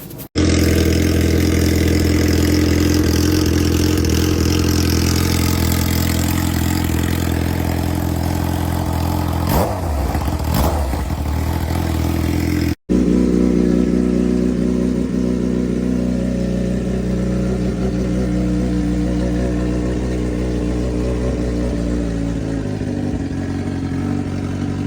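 Suzuki GSX-R600 inline-four motorcycle engine running at a steady idle, with a couple of brief revs about ten seconds in. A cut is followed by more steady idling that settles slightly lower near the end.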